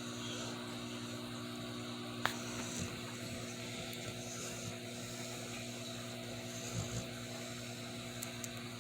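A sleeping dog snoring softly, with two faint low snores about four seconds apart, over a steady electrical hum.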